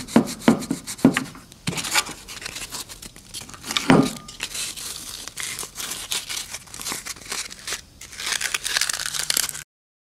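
Thin plastic being peeled and crinkled by hand around the filler-covered volume knob area: irregular crackling and tearing with scattered small clicks. It cuts off suddenly near the end.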